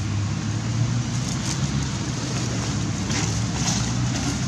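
A motor running with a steady low hum, holding an even pitch, with a few faint brief rustles over it.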